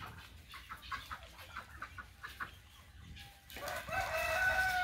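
A run of short, quick clucks, about five a second, then about three and a half seconds in a rooster starts crowing: one long, loud call.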